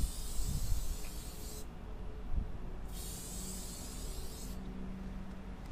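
Aerosol spray-paint can hissing in two bursts of about a second and a half each, as strokes are sprayed onto a wall.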